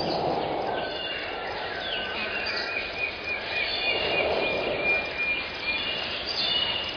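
Jungle ambience: bird calls and insect chirps over a rushing noise bed. The noise swells briefly at the start and again about four seconds in.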